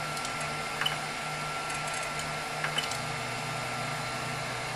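Short beeps from a 3D printer's control panel as its knob is pressed, twice, over the steady hum of the printer's cooling fans.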